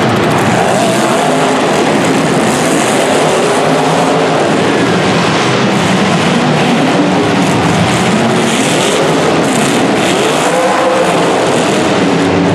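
Several demolition derby cars' engines running hard and revving together in a loud, continuous din, with engine pitch sweeping up and down.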